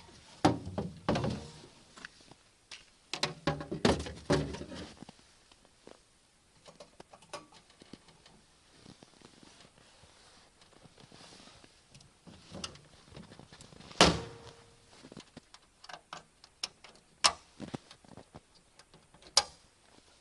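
Irregular knocks and thuds of things being handled, heavier in two bunches near the start, with one sharp knock about fourteen seconds in and light clicks in between.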